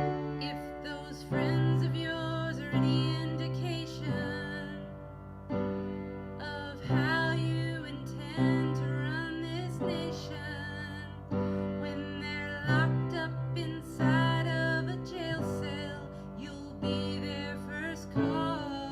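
Piano music: a slow song with chords struck about every second and a half, under a wavering, vibrato melody line.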